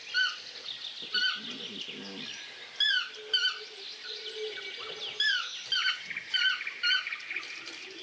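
Yellow-throated toucan giving short yelping calls. Each note rises and then falls in pitch, often in pairs, repeated every second or two, over a faint crackly chatter of forest sound.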